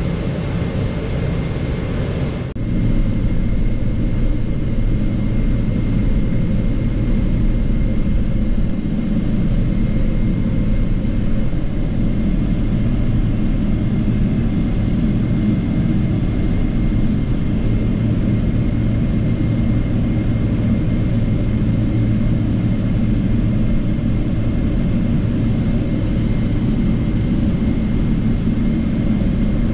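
Boeing 777-300ER's GE90 engines at taxi power heard inside the cabin at a window seat: a steady low rumble with a thin, high whine. A brief dip about two and a half seconds in, after which it runs a little louder.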